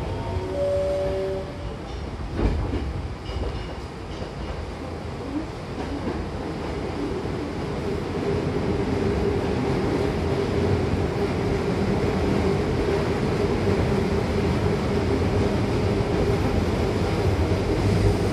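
Hankyu Takarazuka Line train running, heard from inside the car by the doors: a steady rumble of wheels on rails with some clatter. A rising whine fades in the first second or so, and a steady hum sets in from about seven seconds.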